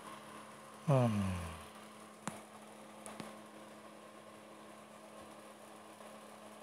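A man's short vocal sound with falling pitch about a second in, then two faint clicks as thin wires are handled, over a steady low hum.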